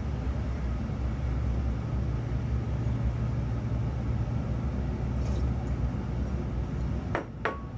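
Steady low background rumble, with a couple of short clicks near the end.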